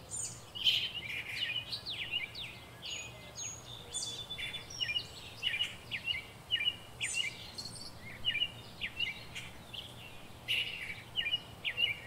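Small birds chirping and twittering, many short quick calls over a faint steady background hum.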